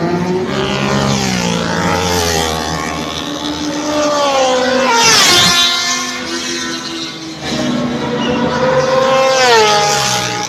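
Racing engines passing one after another at speed, several heard at once, each one's pitch rising and then falling as it goes by. The loudest pass comes about five seconds in, another shortly before the end.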